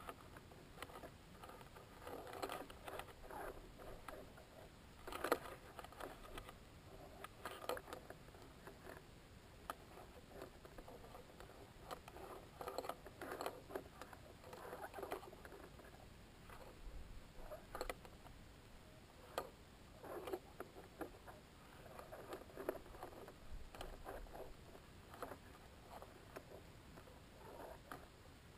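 Faint, irregular scratching, rustling and clicking from a high-altitude balloon payload's onboard camera housing as the payload swings, with a few sharper ticks.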